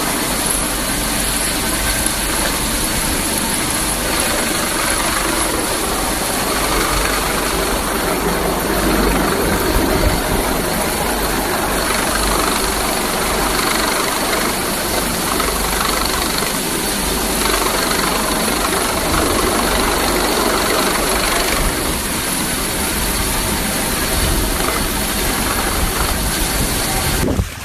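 An engine running steadily under a heavy rushing noise, with a faint high whine over it, cutting off abruptly near the end.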